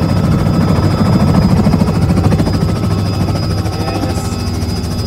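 Small helicopter's engine and rotor running steadily, with a rapid, even chop from the blades, heard from inside the cabin.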